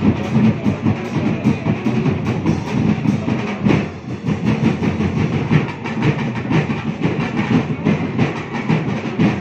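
Live drum and percussion ensemble playing a fast, driving beat, with sharp strikes several times a second.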